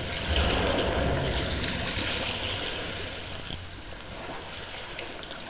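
Low rumble of traffic crossing the steel highway bridge overhead, heard from beneath the deck, fading away over the first few seconds. River water lapping and splashing around the kayak throughout.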